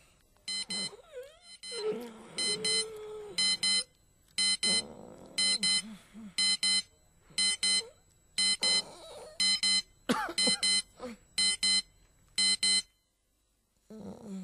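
Digital alarm clock beeping: fast, high electronic beeps in short repeated groups that stop about a second before the end. A low voice groans now and then underneath.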